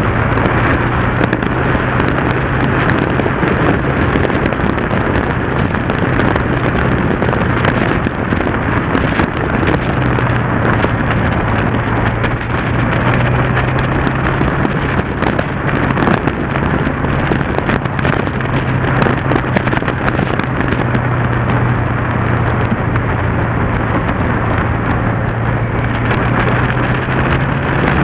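Yamaha TDM motorcycle's parallel-twin engine running at a steady cruise, its low drone shifting only slightly in pitch, under a heavy rush of wind noise on the bike-mounted camera's microphone.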